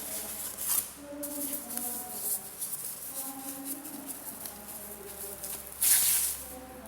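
Background music, with short rustling noises from the keyboard's packaging being handled. The loudest rustle comes about six seconds in.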